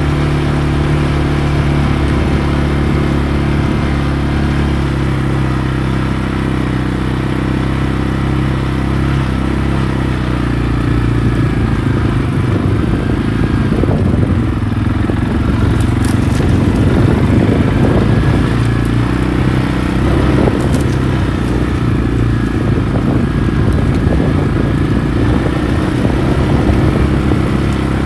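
ATV engine running during a ride: steady for about the first ten seconds, then rougher and a little louder with rattling, and a few sharp clicks partway through.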